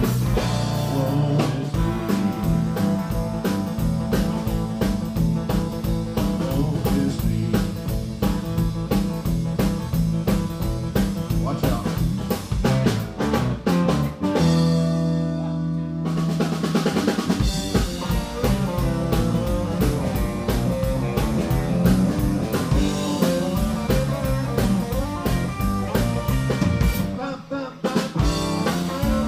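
Live band playing an instrumental passage on Telecaster-style electric guitar, electric bass and drum kit. About halfway through, the drums drop out for a moment under a held chord, then the band comes back in.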